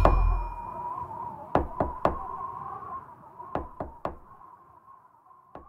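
Knocking in sets of three quick raps, repeated about every two seconds and growing fainter each time, over a faint high held tone dying away after the music ends.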